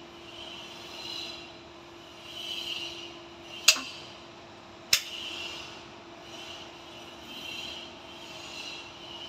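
Two sharp knocks about a second apart, near the middle, over a steady hum and a hiss that swells and fades about once a second.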